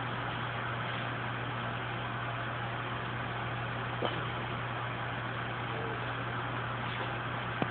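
Steady low hum under an even hiss, with two faint clicks, one about four seconds in and one near the end.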